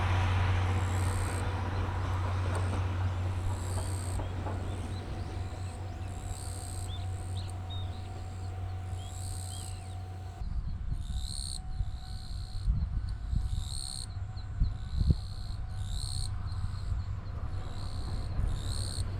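Low rumble of a train moving away, fading until it is cut off about halfway through. Then a noisier stretch with a few low bumps. Throughout, a short high-pitched call repeats in the background, about every second or two.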